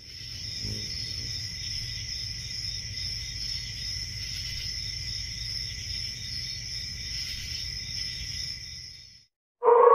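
Night-time crickets chirring steadily in a continuous chorus over a low rumble, fading in at the start and cutting off about nine seconds in. Just before the end a loud, sustained tone starts.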